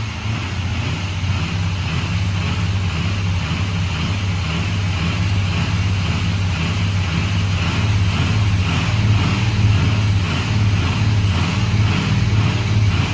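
Rebuilt Ford Power Stroke V8 turbodiesel idling steadily, warmed to operating temperature with the thermostat open, a little louder in the second half.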